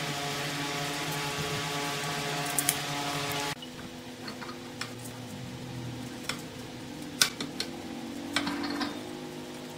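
Steady hum of a running workshop motor with a couple of sharp clicks, then, quieter, a low hum with scattered knocks and taps as the log is handled on the wood lathe.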